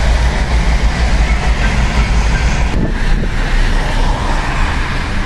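Steady rumble and road noise of a moving vehicle, an even, unbroken drone with no separate events.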